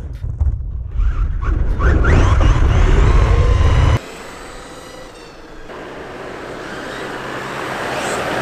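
Brushless RC monster truck at speed, heard from its own onboard camera: heavy wind rumble on the microphone with short rising motor whines. About four seconds in it cuts off suddenly, and a quieter vehicle sound grows steadily louder as the Land Rover comes closer.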